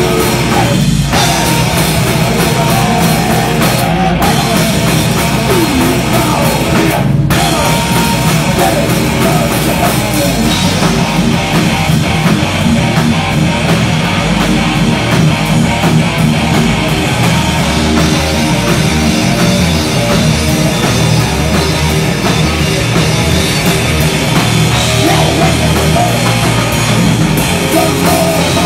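Three-piece hard rock band playing live and loud: amplified electric guitars over a pounding drum kit.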